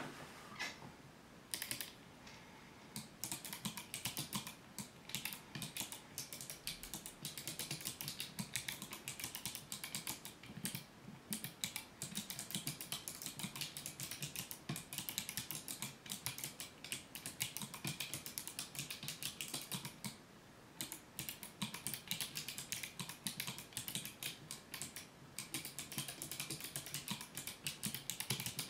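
Typing on a keyboard fitted with Kailh Navy switches: a fast, steady run of keystrokes that starts with a few scattered presses and pauses briefly about two-thirds of the way through.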